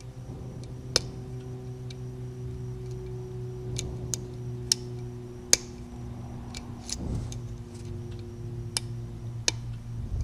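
Sharp, irregular metallic clicks of a lock pick and tension wire working the pins of a 5-pin Corbin pin-tumbler lock during picking, about ten clicks, over a steady low hum.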